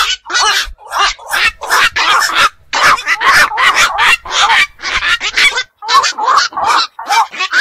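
Black-crowned night herons calling: harsh, barking squawks in a fast, irregular string of about three calls a second.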